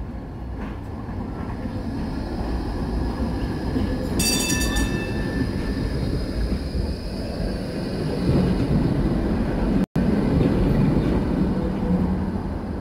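Tram running along curved street track and passing close by, its low rumble of wheels and motors growing louder as it approaches. A brief high ringing tone sounds about four seconds in.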